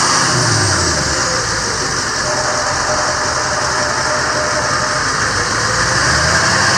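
6.6-litre Duramax V8 turbodiesel of a GMC C5500 truck idling steadily, with a constant hiss over it and a slight dip and rise in engine pitch.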